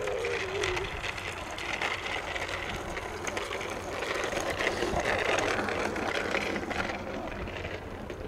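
Boeing 777-300ER's GE90 turbofan engines heard from the ground on final approach: a steady rushing jet roar that swells to its loudest about five seconds in.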